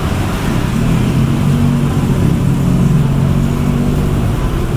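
Street traffic: a motor vehicle engine running close by as a steady low hum, over continuous road noise.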